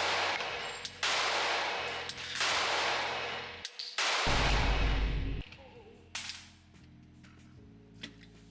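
Glock 43X 9mm pistol fired in a string of four single shots, roughly one every second or so, each with a long ringing echo. A deep rumble follows the last shot, and a single fainter shot comes about six seconds in.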